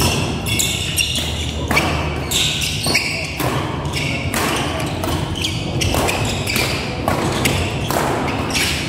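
Badminton doubles rally: repeated sharp racket strikes on the shuttlecock, several a second at irregular spacing, mixed with players' shoes thudding and scuffing on the court, in an echoing sports hall.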